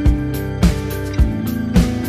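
Background music with a steady beat, a little under two beats a second, over held instrument notes.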